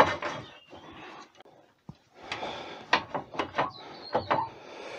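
A turning tool knocking and scraping irregularly against the base of a monkey puzzle bowl, about a dozen short knocks with the strongest at the start. The knocks come as the tool meets the soft pith at the centre.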